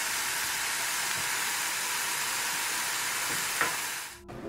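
Chicken pieces sizzling in oil in a nonstick frying pan: a steady hiss that fades away near the end.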